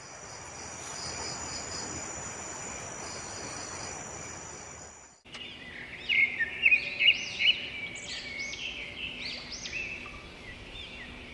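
Night ambience of insects trilling steadily in high, pulsing tones over a soft hiss. After about five seconds it cuts abruptly to birds chirping busily in many short rising-and-falling calls.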